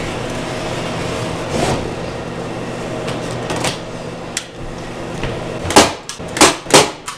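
A staple gun firing four sharp snaps in quick succession near the end, fastening automotive carpet to a wooden table. A steady low hum runs underneath.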